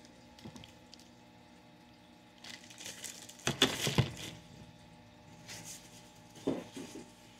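Plastic sleeves crinkling and rustling, with a few light knocks of hard plastic CGC comic slabs being handled, in two short spells around the middle and near the end.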